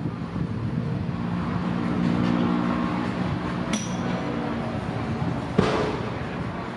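Alsthom diesel-electric locomotive running steadily. A sharp metallic clink comes a little under four seconds in, and a heavier metallic clank follows just over five and a half seconds in.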